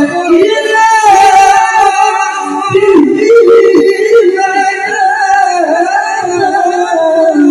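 A male Quran reciter chanting tilawah into a microphone in a high, piercing voice. He holds long notes and bends them with wavering ornaments: one long high note from about a second in, a drop near three seconds, then another ornamented phrase.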